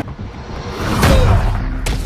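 Action-film sound effects from a movie soundtrack: a low rumble with a rush of air swelling about a second in, and a short sharp hit near the end, under film score.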